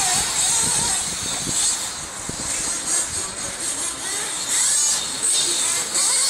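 Radio-controlled off-road buggies running on a dirt track, their motors revving up and down in rising and falling whines.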